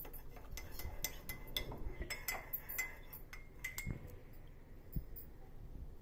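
Spoon stirring honey into a cup of hot herbal drink, clinking rapidly against the cup's sides at about four clinks a second, with a short ring after each. The clinking thins out after about four seconds.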